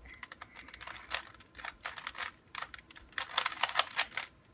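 Rubik's Cube being turned by hand: its plastic layers clicking and clacking in quick irregular runs, busiest about three seconds in.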